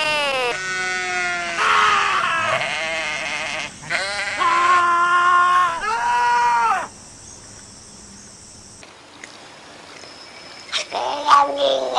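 Sheep bleating: three long, loud, human-sounding bleats one after another, after the tail of a falling animal call at the very start. After a short lull, a cat starts yowling near the end.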